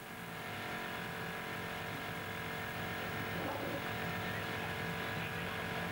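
Rally car engine running at a steady idle as the car creeps in at low speed. A faint voice is heard briefly near the middle.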